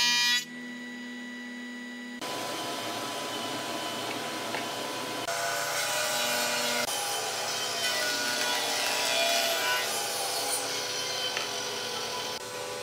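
Power woodworking machine cutting wood: a dense, noisy cutting sound over a steady machine hum, which changes abruptly several times. The first two seconds are quieter, with only the hum.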